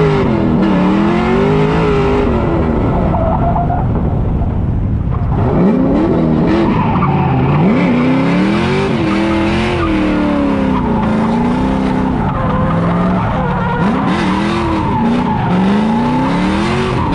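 Drift car's engine revving up and falling back again and again through a slide, with its tires screeching and smoking on the asphalt.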